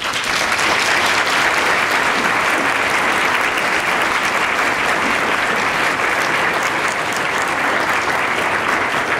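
Audience applause that breaks out all at once and holds steady.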